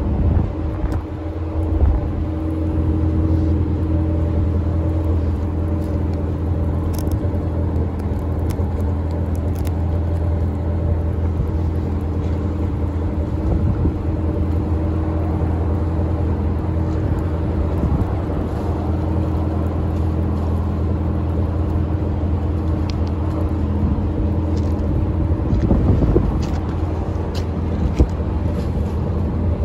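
A steady low mechanical hum with several steady tones dominates. Above it are a faint hiss and scattered small ticks, as of light rain falling near the microphone.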